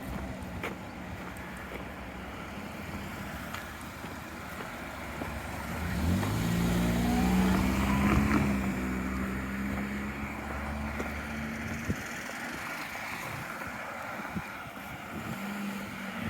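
A vehicle engine rises in pitch and loudness about six seconds in and runs strongly for several seconds. It drops away sharply near the twelve-second mark, leaving a low steady hum.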